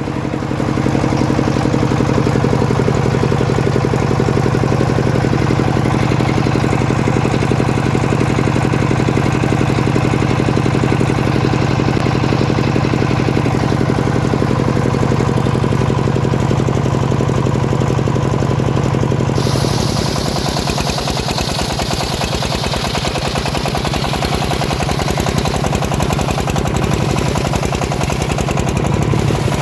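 Engine of a homemade log sawmill running steadily with a strong low hum. About two-thirds of the way through, the hum gives way and a high hissing rasp comes in, as the saw blade starts cutting into the teak log.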